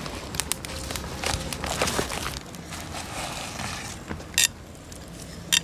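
Twigs snapping and rustling as a small wood campfire is stoked, with scattered crackles, and two short sharp clinks near the end.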